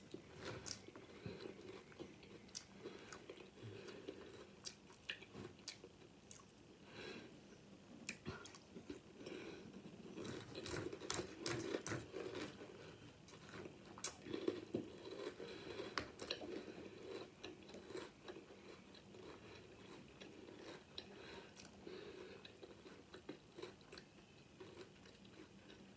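A person chewing a mouthful of crunchy Post Sour Patch Kids cereal close to the microphone: faint, irregular crunches and mouth noises, busiest in the middle of the stretch.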